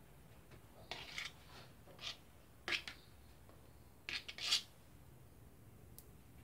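Short scrapes and smears as thick blue offset ink is spread by hand into the ink fountain of a Toko 810 offset press. There are a few quick strokes about one, two and nearly three seconds in, and the loudest cluster comes around four seconds in.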